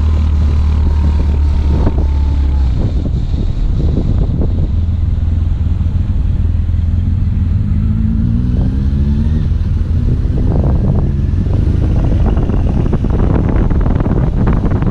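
BMW R1200GS boxer-twin motorcycle engine running on the move, with wind buffeting the helmet-mounted microphone; about eight seconds in, the engine note rises.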